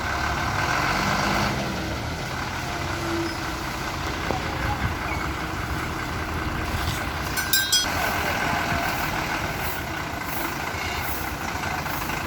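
Heavy diesel vehicle engine running steadily, with a short burst of hissing noise about seven seconds in.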